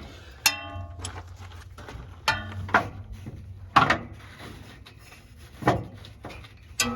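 Wrenches clinking and knocking against metal fittings, about five sharp knocks a second or so apart. The first and last ring briefly like struck steel.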